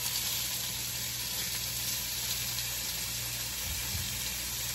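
Raw bacon strips sizzling steadily in a hot frying pan as more slices are laid in.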